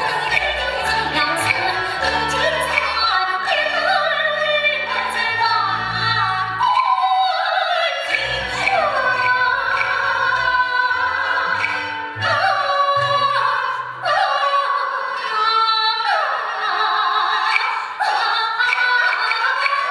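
A female Yue opera singer sings a sustained, sliding aria line over the opera band's accompaniment, with sharp percussion taps. About seven seconds in, the low accompaniment falls away and returns only in short stretches, leaving mostly the voice.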